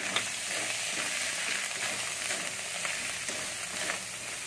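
Ginger paste sizzling and frying in hot oil with whole spices in a metal kadai, a steady crackling hiss, with a flat metal spatula stirring and scraping the pan now and then.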